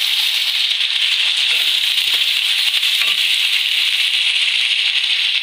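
Beef pieces and freshly added tomato slices sizzling steadily in hot oil in a karahi, stirred with a wooden spatula that makes light scrapes and taps against the pan.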